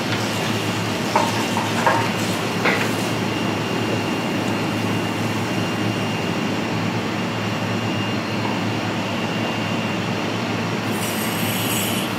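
Steady mechanical hum and hiss, with a few light clinks in the first three seconds.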